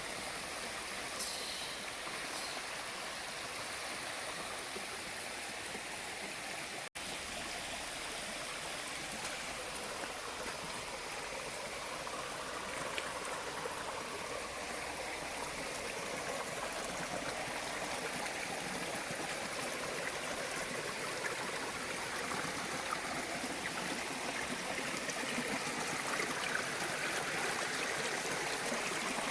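Mountain stream from a small waterfall rushing over boulders, a steady wash of water that grows slowly louder. The sound drops out for an instant about seven seconds in.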